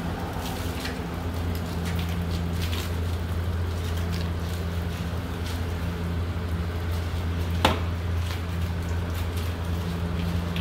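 Self-serve car wash high-pressure wand spraying a car, with the steady hum of the bay's pump under the hiss of the water. A single sharp click comes about two-thirds of the way through.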